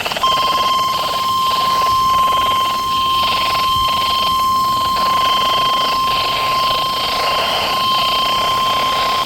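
National Weather Service 1050 Hz warning alarm tone, as broadcast on NOAA Weather Radio: one steady high beep held for about nine seconds over a hiss of radio noise. It signals that a warning message, here a Severe Thunderstorm Warning, follows.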